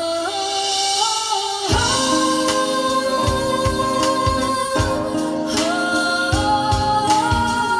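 Soul song with held wordless singing over guitar, a steady drum beat coming in about two seconds in, played back on a car audio system with Focal PS165FX component speakers.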